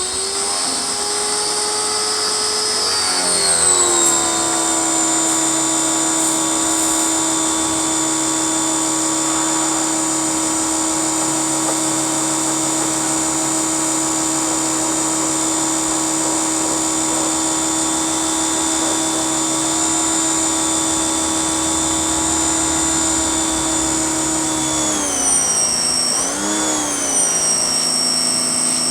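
Pressure washer running at a steady pitch just after starting. The pitch drops and settles about three seconds in, then dips and wavers briefly near the end before steadying again.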